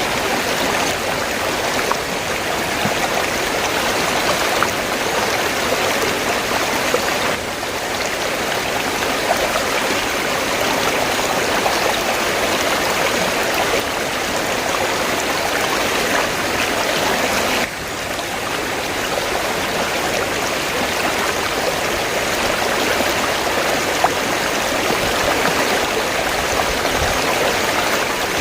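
River water flowing steadily, an even rush of water noise, with two sudden slight shifts in level about seven and eighteen seconds in.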